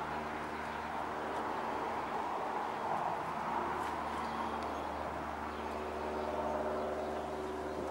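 Dogs digging and snuffling among rocks in dry garden soil, over a steady low hum; a rush of noise swells about three seconds in and again near the end.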